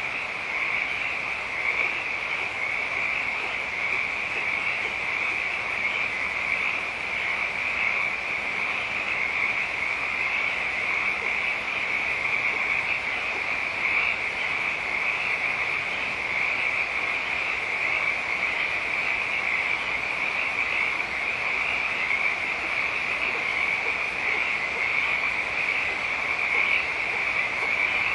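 A dense chorus of many frogs calling at once, forming a steady, unbroken high-pitched din with no pauses.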